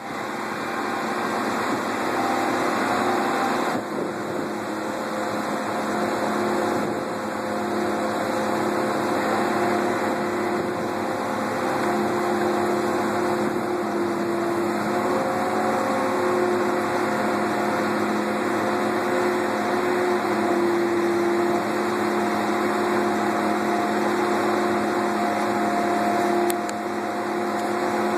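Monk 36 trawler's inboard diesel engine running at low speed as the boat motors out of its slip, a steady hum whose pitch shifts slightly now and then.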